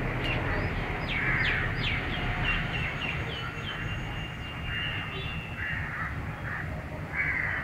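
Birds calling: a run of quick downward-sliding chirps in the first few seconds, then a few short, harsher calls, over a low steady rumble.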